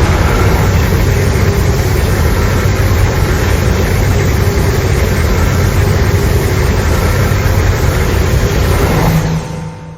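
Designed kaiju sound effect: a loud, steady rumbling noise with a deep low rumble underneath, fading out near the end.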